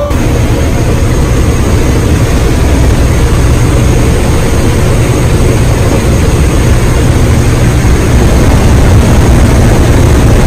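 Jump aircraft in flight, heard from inside the cabin: engines running with rushing air as a loud, steady low drone, rising a little near the end.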